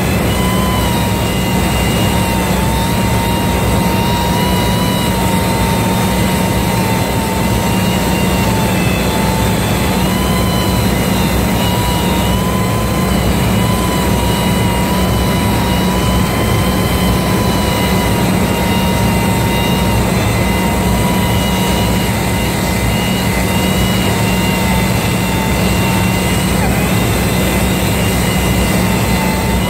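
Handheld electric grinder running against the steel of a ship's main-engine exhaust valve, cleaning the valve seat. Its motor whine holds steady and wavers slightly in pitch as the tool is pressed onto the metal.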